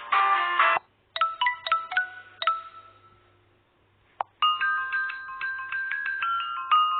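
Samsung Galaxy S3 mini ringtones: one busy tune cuts off about a second in, a short glockenspiel-like chime phrase plays and dies away, then after a single click a new chime melody of held bell-like notes begins.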